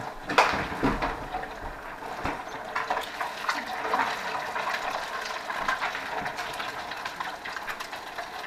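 Pieces of smallmouth buffalo frying in a countertop deep fryer: the oil sizzles steadily, with many small crackles.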